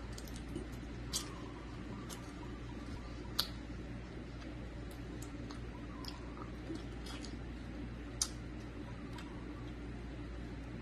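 Close eating sounds: scattered soft clicks and wet smacks of chewing and of fingers handling and peeling saucy butter garlic shrimp, with three sharper clicks standing out.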